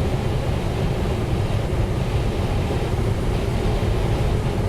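Steady rush of air over a sailplane's cockpit and canopy in engineless gliding flight, a constant low rumbling hiss.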